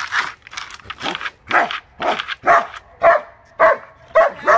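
German Shepherd dog barking in excited play at a wooden board it is attacking: a steady run of short barks, about two a second.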